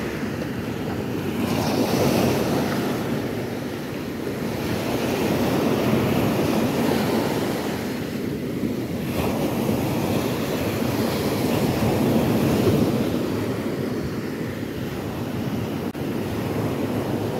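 Ocean surf washing onto a beach, a steady rush that swells and eases every few seconds, with wind buffeting the microphone.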